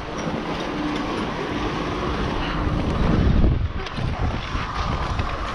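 Skis sliding over packed snow, slowing down, with wind rushing on the action camera's microphone.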